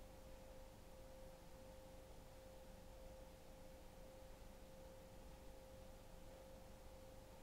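Near silence: faint hiss with one steady, unchanging tone.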